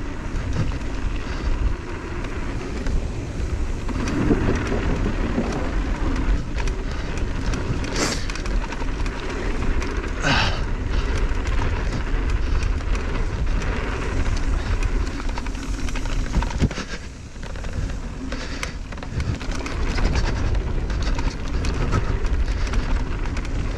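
Riding noise from a mountain bike descent on a dirt trail: wind buffeting the action camera's microphone over the rumble and rattle of tyres and bike on the ground. Two brief louder hisses about eight and ten seconds in.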